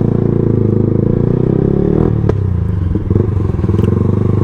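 Yamaha R15M's single-cylinder engine running through its exhaust, the note wavering slightly near the middle, with a sharp click about two seconds in.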